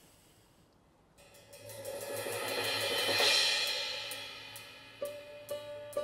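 A cymbal swell: rapid strokes that start after about a second of quiet, build to a peak and die away. Near the end, a concert kokle begins plucking clear, ringing notes.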